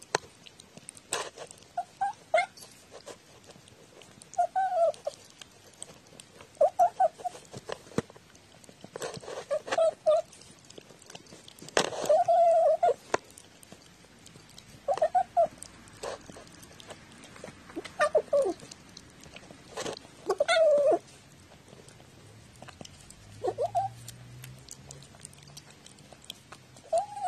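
Cat giving about a dozen short, talking-like mews while it eats from a dish, one every two to three seconds, with a longer one near the middle. Sharp clicks of eating sound between the calls.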